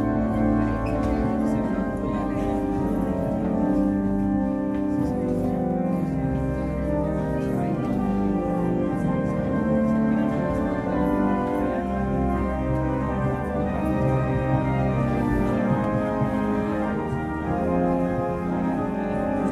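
Church organ playing held chords over a deep pedal bass, the chords changing every second or two.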